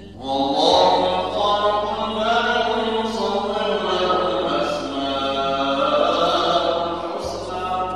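A man reciting the Quran in melodic chant (tilawa): one long drawn-out phrase that starts about half a second in, its pitch rising and falling over held notes, and tails off near the end.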